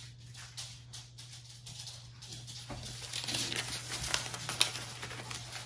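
Paper rustling and scuffing under a hand as a painted leaf is pressed onto paper and paper is handled, with a few light clicks and taps that get busier about halfway through. A steady low hum runs underneath.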